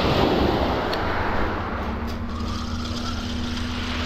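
Small waves washing onto a shingle beach, with wind rumbling on the microphone. The wash swells in the first second or so, and a steady low hum joins about halfway through.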